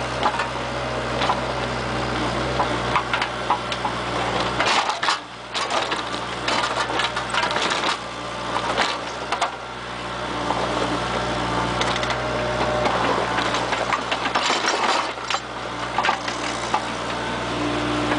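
Bobcat mini excavator's diesel engine running, heard from inside the cab, with frequent clanks and rattles as the operator works the joystick. The low engine hum dips briefly twice, about five seconds in and again around nine seconds.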